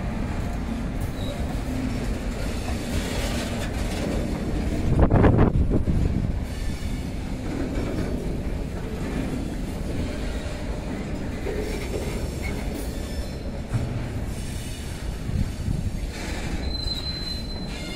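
Loaded BTPN petrol tank wagons of a freight train rolling past at close range, their wheels running over the rail joints with a steady clatter. There is a louder surge about five seconds in, and a brief high-pitched wheel squeal near the end.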